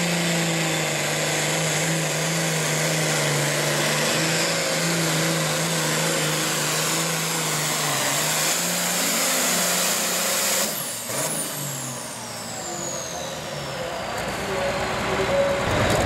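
John Deere Super Farm class pulling tractor's turbocharged diesel engine running at full throttle under load with a steady, even tone. About ten and a half seconds in, the engine comes off the throttle and drops away, leaving a high turbo whistle that winds down slowly.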